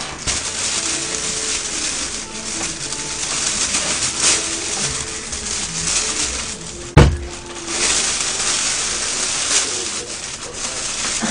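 Thin plastic carrier bag rustling and crinkling as it is handled and opened, with one sharp thump about seven seconds in.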